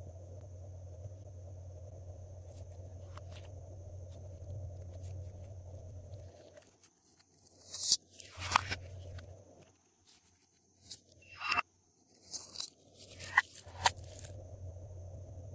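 Glossy slime being squished and pulled by hand, giving irregular sticky crackles and pops, most of them in the second half. A steady low background hum runs through the first six seconds and then stops.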